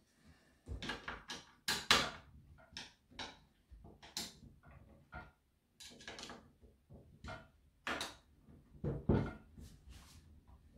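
Irregular clicks and knocks of a screwdriver and hands on a Husqvarna chainsaw's plastic housing as its top cover is unscrewed, with the loudest knocks about two seconds in and near the end.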